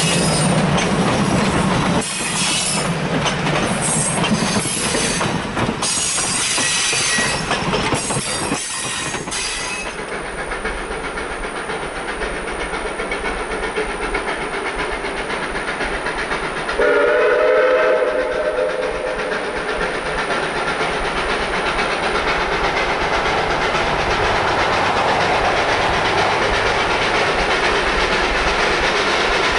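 Passenger cars rolling past at close range, wheels clicking over rail joints. After a cut, a single distant train horn blast of about a second and a half sounds about halfway through, over steady background noise.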